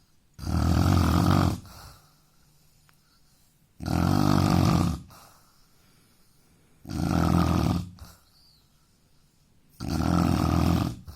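A man snoring loudly: four snores about three seconds apart, each lasting a little over a second.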